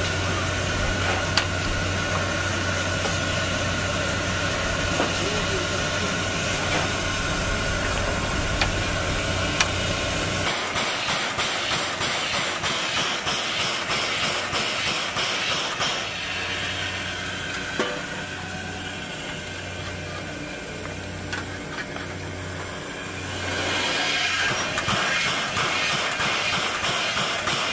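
C11 171 steam tank locomotive standing in steam: steady hiss with a low hum, then a fast regular beating from about ten seconds in. The sound drops quieter in the middle and the hiss grows louder again near the end.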